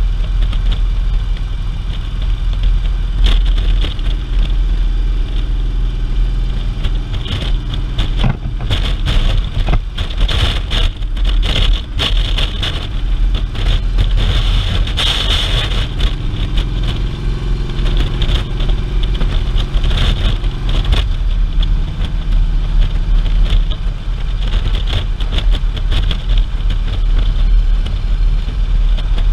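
Touring motorcycle at road speed: a steady low engine drone under wind rushing over the microphone. The wind buffets in gusts from about a third of the way in to just past the middle, and the engine note shifts a little after that.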